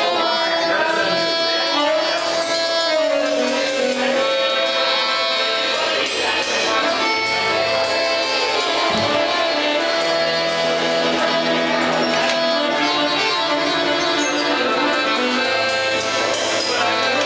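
Live band playing: accordion, guitar and a drum kit with cymbals, the accordion's held notes prominent.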